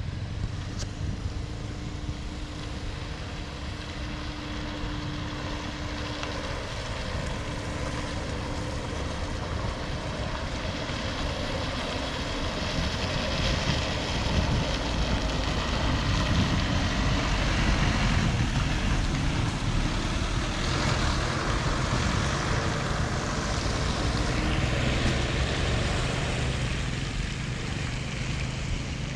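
Vehicle and road noise, steady and a little louder in the middle, with wind buffeting the microphone.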